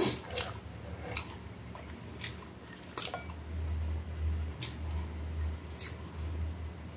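Scattered light clicks and crackles of food being handled at a table as French fries are picked up from a bowl and laid on a hot dog, with a low rumble through the second half.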